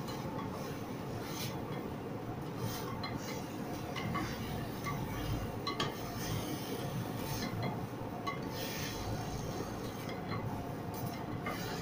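Spatula stirring and scraping diced vegetables frying in masala in a pot, with irregular clinks against the pot over a steady sizzle.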